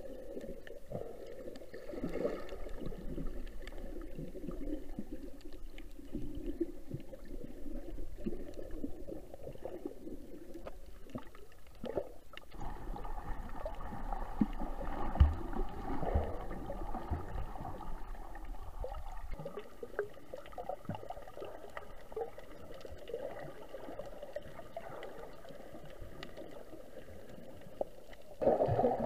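Muffled underwater sound picked up by a submerged camera: water moving and gurgling, with scattered small clicks. A low rumble underneath stops about two-thirds of the way in, and the sound grows louder just before the end.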